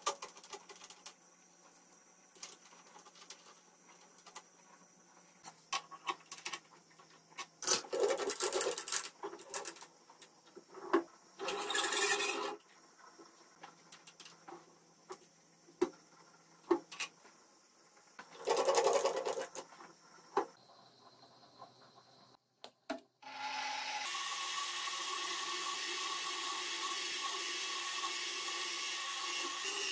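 Metal tools and parts clinking and being handled at a benchtop milling machine, with a few short, louder bursts of handling noise. About three-quarters of the way through, the mill's spindle motor starts and runs steadily with a whine.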